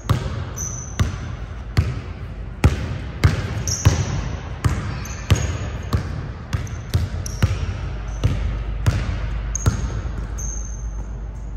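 A basketball being dribbled, about one to two bounces a second, with short high sneaker squeaks in between. The bouncing stops near the end.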